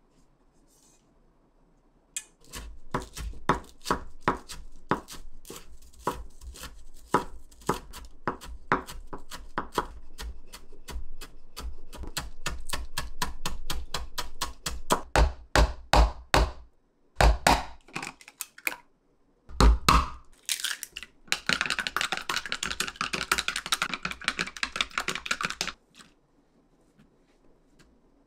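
Kitchen knife chopping green onion on a wooden cutting board: a long run of quick, even strokes, then a few harder separate knocks. After that comes several seconds of dense, noisy scraping.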